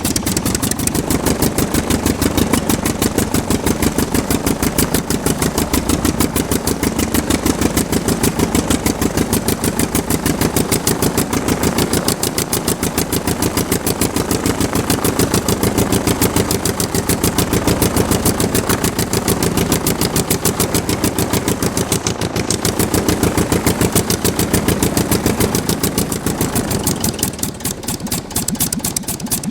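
Aircraft engine running steadily at low speed, with an even, rapid pulsing beat. It eases off a little near the end.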